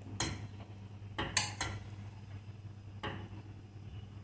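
Steel spoon clinking and scraping against a steel pot and plate while biryani rice is scooped out: a few sharp clinks, the loudest cluster about a second and a half in.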